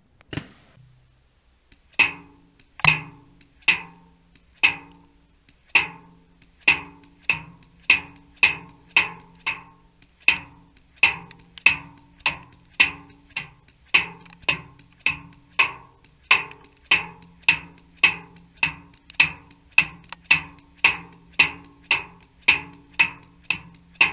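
DYE DSR paintball marker firing shot after shot, about one and a half to two sharp cracks a second, with the balls breaking on steel drums.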